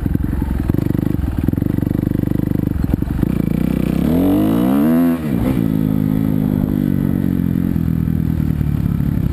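A 250cc four-stroke motocross bike's single-cylinder engine running under way. About four seconds in its pitch climbs and then drops sharply as the throttle is opened and shut, after which it settles to a steadier, lower note.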